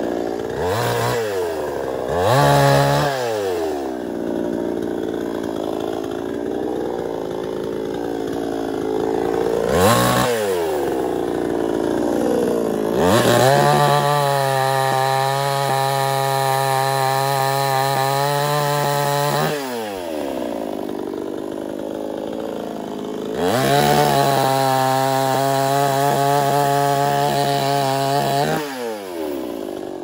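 Two-stroke petrol chainsaw revving: several short throttle blips, then two long full-throttle cuts through a tree trunk of about five to six seconds each, each one dropping back toward idle with a falling pitch.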